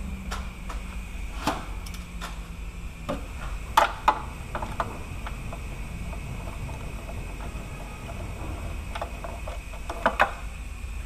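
Scattered sharp metallic clicks and clinks of a ratchet and socket against the starter's mounting bolts while they are being started, over a steady low hum. The loudest clinks come in pairs about four seconds in and near the end.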